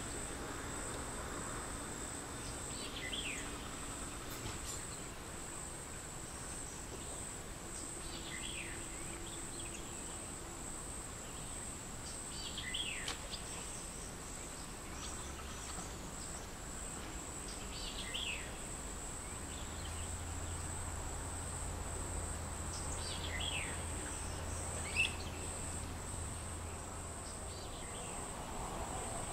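Insects trilling steadily at a high pitch, with a bird giving short, falling whistled notes every few seconds over a faint low rumble.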